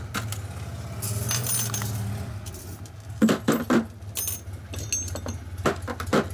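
Thin steel thrust washers and shims from a Harley-Davidson WLA wheel hub clinking and ringing as they are handled and set down on a metal bench top. A quick cluster of sharp clinks about three seconds in is the loudest, with a few more near the end.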